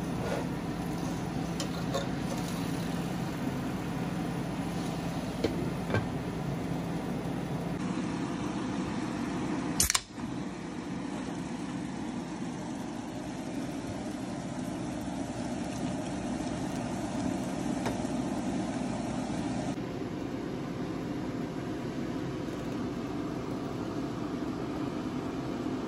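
Steady whooshing background noise with a low hum in the first part, broken by a single sharp click about ten seconds in.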